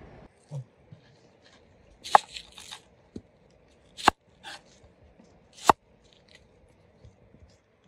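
Knife slicing a red onion on a wooden cutting board: a few separate crisp cuts, each ending in a sharp knock of the blade on the board, about a second and a half to two seconds apart. Water pouring off cuts out at the very start.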